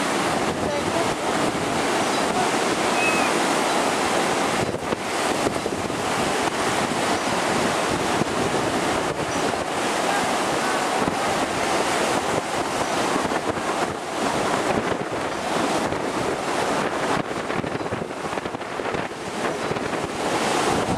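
Rough storm surf breaking and washing up the beach in a steady rush, with wind blowing across the microphone.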